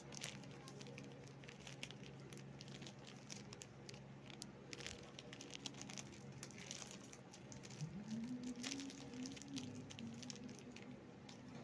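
Thin plastic snack wrapper of a Choco Mucho bar crinkling and crackling in quick small bursts as it is torn open and peeled back by hand. A short low hum rises and holds about eight seconds in.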